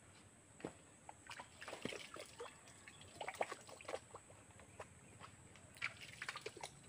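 Hands scooping and splashing water in a small rock pool fed by a spring: faint, irregular splashes and drips, busiest in the middle and again near the end.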